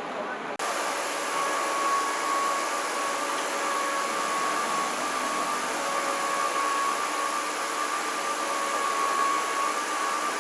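CNC machine tool running steadily, a hiss of machine noise with a high whine held throughout. The sound changes abruptly with a brief dip about half a second in, then carries on unchanged.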